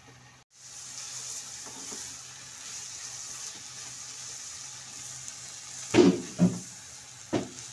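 Beef keema with onions sizzling steadily in a nonstick frying pan while a silicone spatula stirs it, the sizzle starting after a brief break near the start. About six seconds in come three loud knocks of the spatula against the pan.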